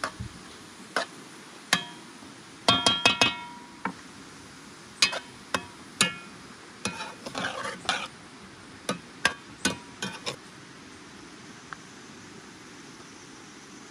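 A metal utensil clinking and scraping against a cooking pot as food is stirred: irregular sharp clinks, some of them ringing, with a quick run of clinks about three seconds in. The clinks stop after about ten seconds.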